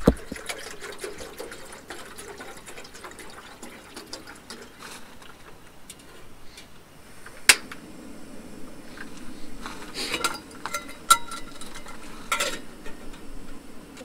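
Cooking at a camp stove: pots and utensils clinking, with a few sharp clinks in the second half, and liquid being poured.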